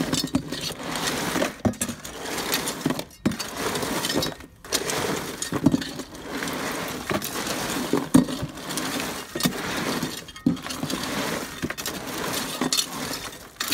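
A cooler full of boiled crawfish being stirred and tossed with a metal paddle: the hard shells clatter against one another and the plastic cooler walls, with louder knocks now and then.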